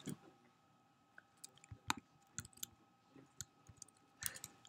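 Sparse, irregular light clicks from a computer keyboard and mouse, about a dozen, with a faint steady electrical hum beneath.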